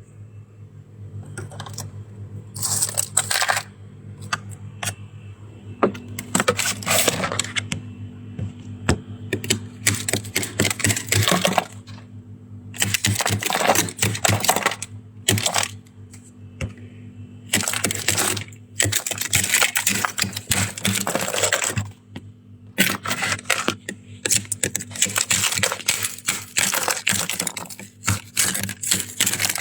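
Close-miked crunching and chewing of soft shaved ice scraped from freezer frost, in crackly bursts of one to two seconds with short pauses between. A faint steady low hum runs underneath.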